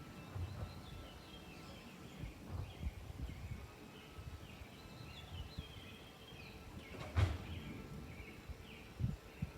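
Suburban outdoor ambience: small birds chirping and calling on and off over a low, uneven rumble. A single sharp knock sounds about seven seconds in, and a fainter one near the end.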